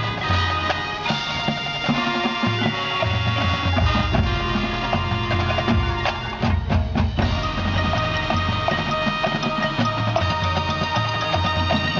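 Marching band playing: held wind chords over pulsing low notes and percussion, with a quick run of sharp drum hits about six and a half seconds in.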